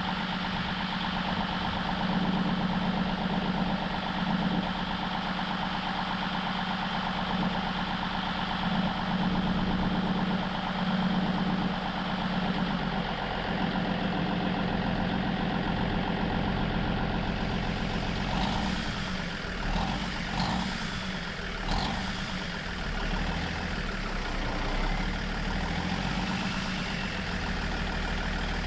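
Heavy diesel truck engine idling steadily, with a few sharper knocks and a brief change in its note partway through.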